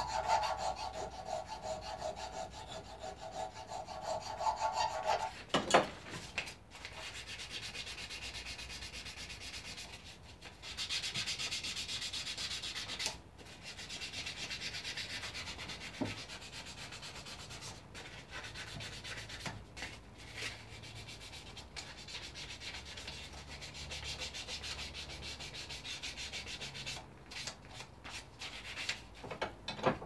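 Hand sanding of a horn beak with 400-grit abrasive paper: scratchy rubbing strokes broken by longer stretches of steady scratching, working out a deep nick in the horn. A steady hum sits under the rubbing for the first five seconds, then a sharp knock comes about five and a half seconds in.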